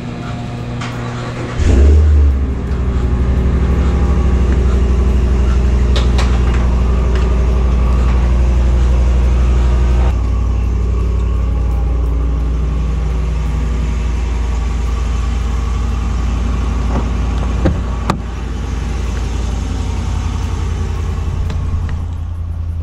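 Pickup truck engine starting about two seconds in with a brief flare, then idling steadily. The idle steps down to a lower, quieter run about ten seconds in.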